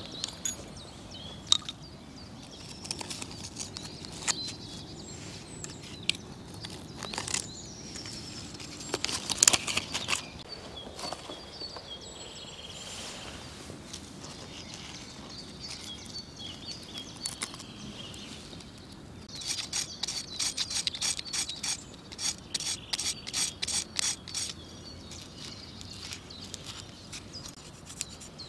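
Knife blade scraping along dry driftwood in a quick run of short, even strokes, about five a second, shaving off fine tinder for fire-lighting. Earlier come scattered sharp clicks and knocks of wood being handled, the loudest about nine seconds in.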